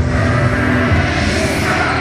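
Loud music with a strong bass playing over an arena sound system for basketball player introductions.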